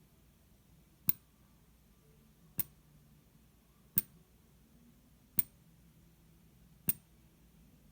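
A quarter resting on the mouth of a chilled glass bottle clinks against the rim five times, about every second and a half: air in the bottle, warmed by hands around it, expands and lifts the coin, which drops back each time the air escapes, the "burping bottle".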